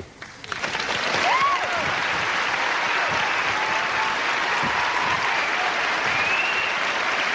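A large seated audience applauding, building up over the first second or so and then holding steady, with a few cheers rising above the clapping.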